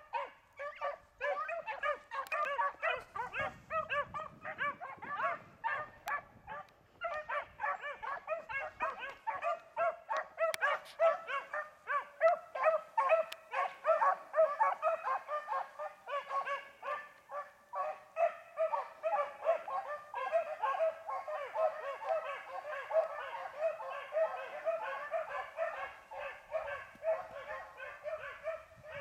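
A pack of beagles baying as they run a rabbit's track, many voices overlapping in quick, repeated yelps. The cry is sparser for the first few seconds, then becomes dense and unbroken.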